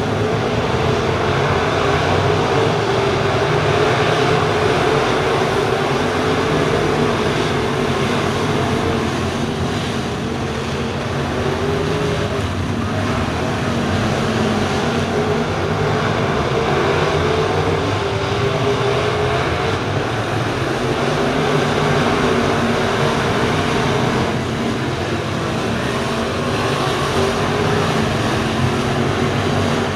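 A field of dirt-track crate late model race cars running laps together, their crate V8 engines a steady, loud drone of many engines at once. The pitch wavers as cars come round, and the sound eases slightly about ten seconds in and again near twenty-four seconds.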